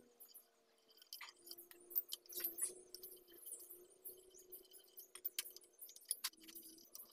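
Light, irregular metallic clicks and clinks of a hand wrench on a long socket extension working bolts on the underside of a Perkins four-cylinder diesel engine during crankshaft removal, over a faint steady hum.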